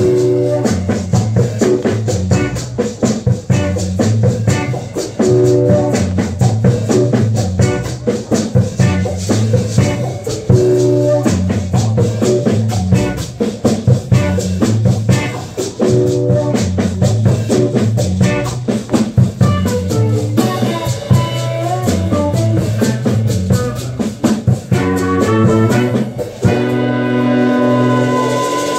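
Live Afro-jazz band playing: drum kit and shaker keep a busy groove over a steady bass line while a horn section of saxophone and trumpet plays short repeated riffs. Near the end the drums drop out and the horns hold long notes.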